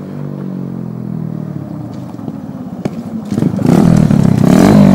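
Tao Tao 125 dirt bike's small single-cylinder four-stroke engine running on a jimmy-rigged setup. It ticks over steadily, then about three and a half seconds in it revs up and gets much louder, staying at high revs.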